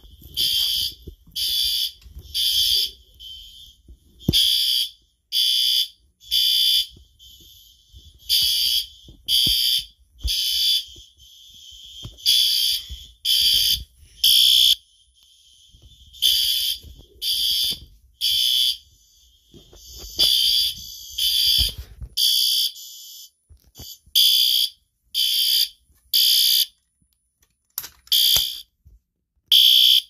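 Fire alarm horns sounding in the temporal-three evacuation pattern: three short high-pitched blasts, then a pause, repeating about every four seconds.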